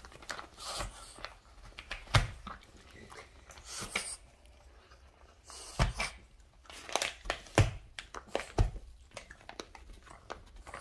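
A Boston terrier tearing and chewing brown kraft paper packaging: irregular crinkling, ripping and crunching, with a few sharper snaps.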